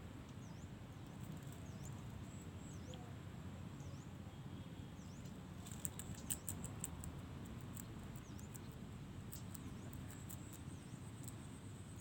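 Quiet outdoor ambience: a steady low rumble with faint, short high chirps repeating about once a second and a thin steady high whine. A flurry of sharp, light clicks comes about halfway through and again near the end.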